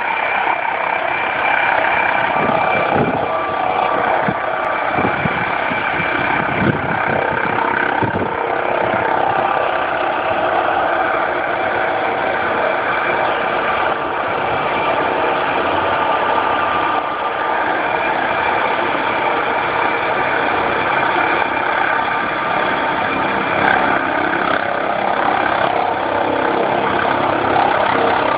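Helicopter running steadily: a loud turbine whine with several held tones over dense engine and rotor noise, with a few low thuds in the first several seconds.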